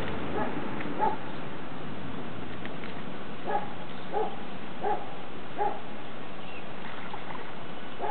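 A dog barking in short, pitched barks: two near the start, then a regular run of them about one every three quarters of a second, over a steady hiss.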